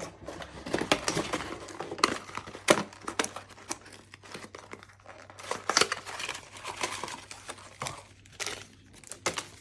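Packaging crinkling and rustling in irregular bursts with sharp crackles, as camera accessories are handled and taken out of their box.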